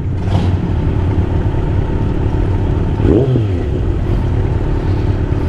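Loud, steady engine sound of a group of chopper motorcycles going past, noisy.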